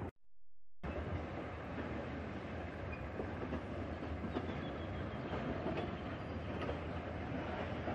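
Freight train wagons rolling slowly through a rail yard: a steady rumble with scattered wheel clicks and a faint high wheel squeal partway through. The sound cuts out completely for under a second just after the start.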